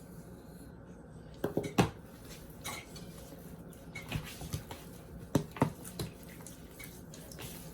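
Scattered light clinks and knocks of kitchenware being handled, about eight in all, while raw chicken is rubbed with salt.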